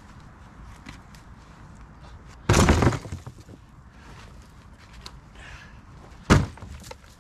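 Two heavy thuds about four seconds apart, the first a longer, heavier knock and the second a sharp thump. These are chunks of cut log being dropped as the wood is moved.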